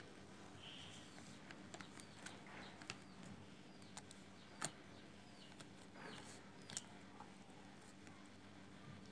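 Near silence: faint room tone with a few small clicks of plastic felt-tip markers being handled and uncapped, the sharpest about four and a half seconds in and another near seven seconds.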